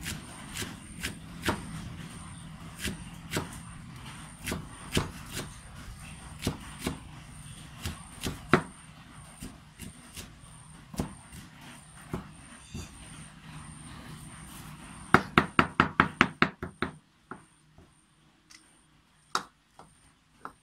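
Cleaver chopping leafy greens on a round wooden chopping board: sharp knocks about twice a second, then a quick run of about ten rapid chops about three-quarters of the way through, followed by a few single knocks.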